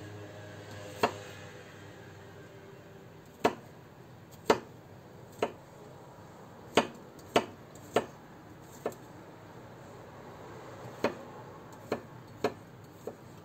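Kitchen knife chopping garlic cloves on a cutting board: about a dozen single sharp knocks of the blade on the board, unevenly spaced, with a short pause partway through.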